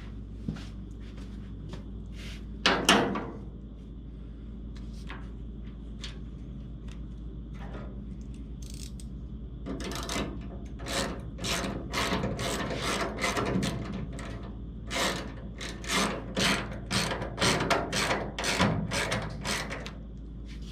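A hand socket ratchet clicking in short strokes, about two clicks a second, as bolts or screws are run down snug on a car's cowl and fenders. One louder knock comes a few seconds before the clicking.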